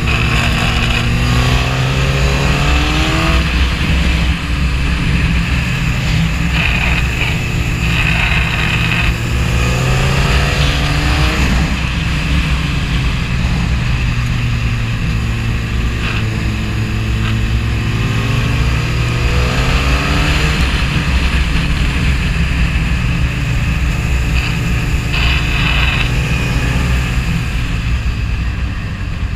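Suzuki GSX-R 1000's inline-four engine heard from the rider's seat while riding, its revs climbing and falling back several times through the bends, over a steady rush of wind.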